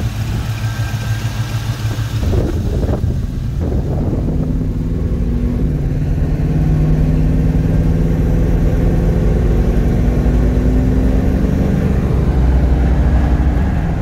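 Performance crate V8 of a 1979 Pontiac Firebird Trans Am running with a rough rumble, then, a few seconds in, the car under way with a steadier engine note that rises slowly in pitch as it gathers speed.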